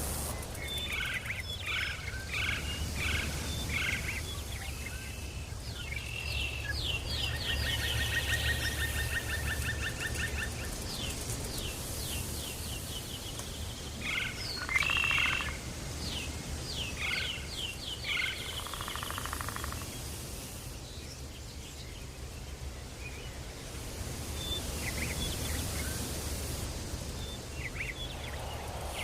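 Tropical forest ambience: many birds chirping and calling in short repeated phrases, with a fast trill running for a few seconds about a quarter of the way in, over a steady low hum.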